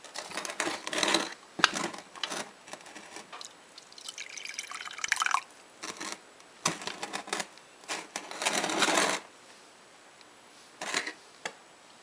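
Coffee poured from a small electric percolator into a ceramic mug: a trickle of liquid about four seconds in, among knocks and clinks of the pot and mug being handled.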